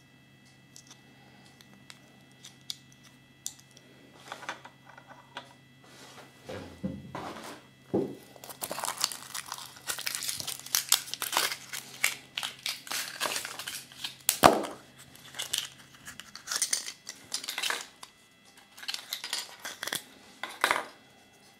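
Foil wrapper of a Kinder Surprise chocolate egg being peeled off and crinkled by hand. A few light clicks come first, then a dense run of crackling rustles, with shorter bursts near the end.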